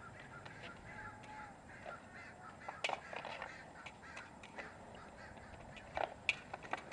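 Skatepark noise on concrete: wheels rolling and decks knocking, with sharp clacks just before 3 s and a cluster around 6 s, over a steady outdoor hiss and scattered distant harsh calls.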